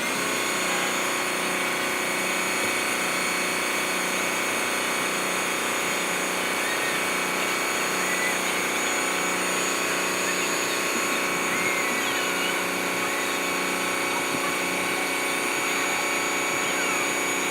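A large engine-driven machine running steadily at high, constant speed, with a low hum that pulses about every second and a half.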